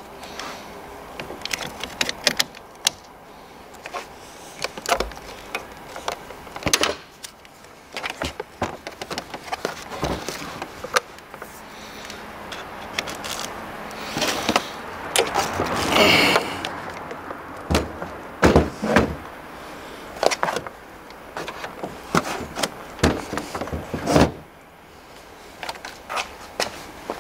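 Jump-starter leads and their spring clamps being handled and clipped onto a car battery's terminals: irregular clicks, knocks and rustling of cable and plastic, with a denser, louder cluster about halfway through.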